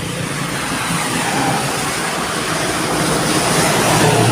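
Road traffic passing close by, engine and tyre noise growing louder toward the end as a vehicle approaches.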